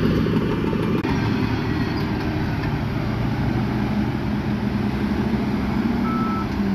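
Diesel engine of heavy earthmoving machinery running steadily under load, with a short high beep near the end.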